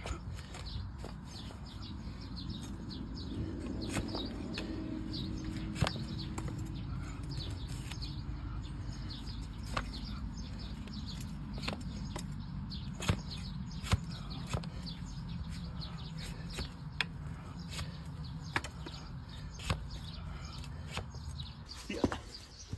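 Hoof trimming on a donkey's overgrown hooves: sharp, irregular clicks and snaps as hoof horn is cut, about one every second or two, over a steady low rumble.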